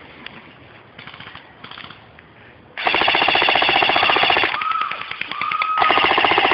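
Airsoft automatic electric gun firing full-auto: a loud, fast, even rattle of shots. Two long bursts, the first starting about three seconds in and the second near the end, with a short lull between them.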